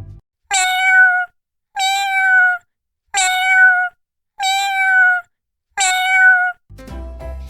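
Domestic cat meowing five times in a row, each meow about a second apart and sounding nearly identical.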